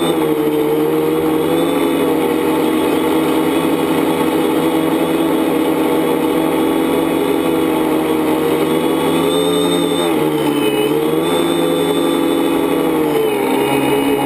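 Tricopter's electric motors and propellers running steadily in flight, a pitched buzz that dips briefly in pitch about ten seconds in and again near the end.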